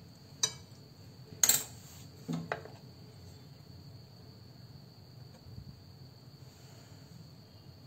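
A few short clicks and knocks from a china plate and food being handled on a stone counter, the loudest about a second and a half in, over a faint steady high whine.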